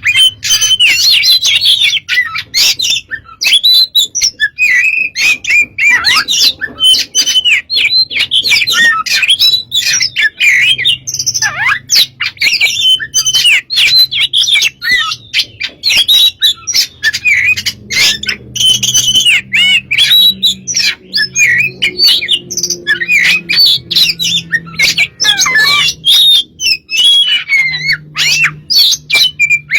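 Oriental magpie-robin (kacer) in full song: a fast, unbroken run of loud, varied whistles, chattering phrases and sharp clicking notes, packed with mimicked calls.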